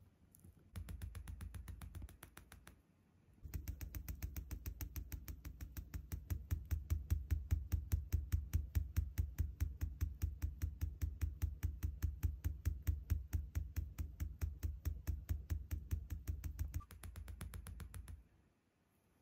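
Lutino cockatiel rapidly tapping its beak against a beanbag cushion, quick even taps each with a dull thud: a short run, a pause, then a long run of about 13 seconds and a last shorter run. This is the excited beak-tapping display of a male cockatiel.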